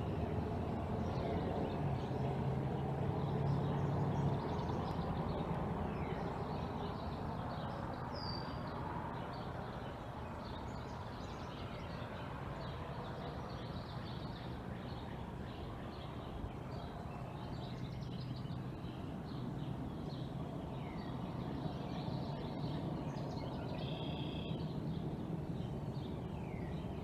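Outdoor ambience: small birds chirping and calling, with some short downward-sliding calls, over a steady low rumble that is a little louder in the first few seconds.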